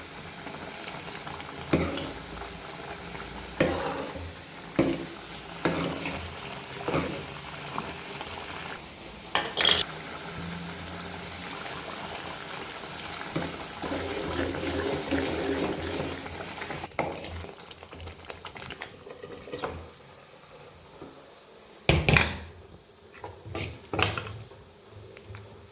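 A spoon stirring food in a pan on the stove, with frying and bubbling under it and the spoon knocking against the pan about once a second at first. A few louder knocks come near the end.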